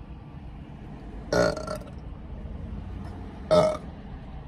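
A woman burping twice, two loud burps about two seconds apart, the second one shorter.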